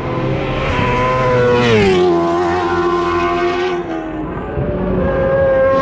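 British Superbike racing motorcycles passing at speed on the straight. About two seconds in, one goes by and its high engine note drops sharply, and near the end another comes up with a rising note.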